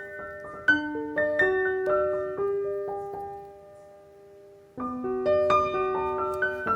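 Background piano music: a slow, gentle melody of single struck notes that fades out briefly near the middle before the notes start again.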